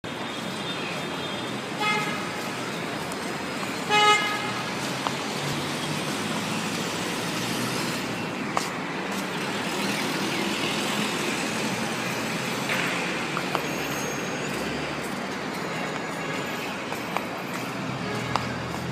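Steady city road traffic with vehicle horns honking twice: a short beep about two seconds in and a louder one about four seconds in.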